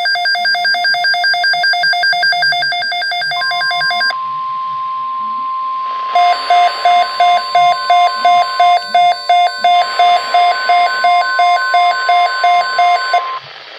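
A Midland weather radio's alarm beeping rapidly, then the steady single-pitch weather-radio alert tone coming through with hiss for about ten seconds. From about six seconds in, the radio's alarm beeps again over the tone at about two beeps a second. Tone and beeps stop together near the end, leaving faint hiss.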